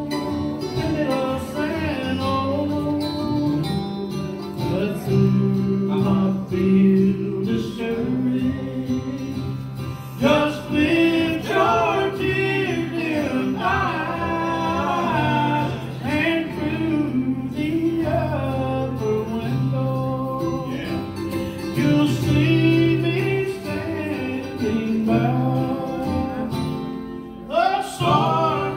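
Live acoustic country music: acoustic guitars strumming while men sing, the voices coming in strongly about ten seconds in.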